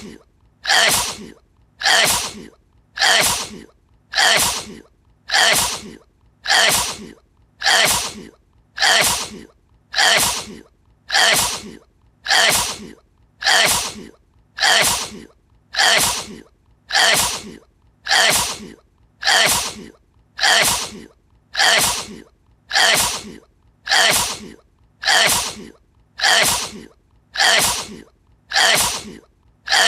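The same sneeze looped over and over, one short sharp burst about every second, each one identical.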